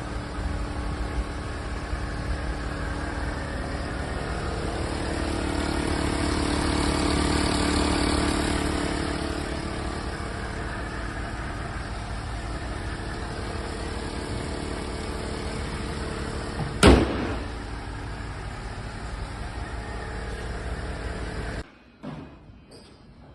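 Mercedes-Benz GL450's V8 engine running at idle, swelling louder for a few seconds about six to nine seconds in. A single sharp knock about seventeen seconds in, the loudest sound, and the engine sound cuts off suddenly about two seconds before the end.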